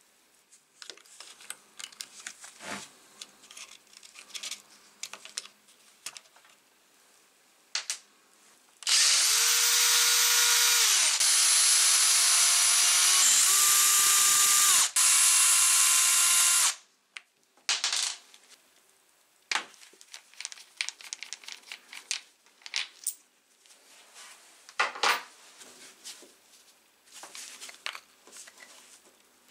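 Small clicks and taps of tools and parts being handled, then a power drill runs for about eight seconds driving out the gear-head screws of an angle grinder. Its steady whine steps in pitch twice and stops briefly near the end of the run. Light clicks and scrapes follow.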